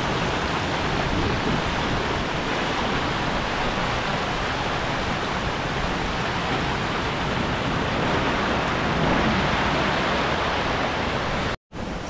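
Shallow river water rushing and splashing over rock ledges at the head of a waterfall, a steady, even rush. It cuts off abruptly near the end.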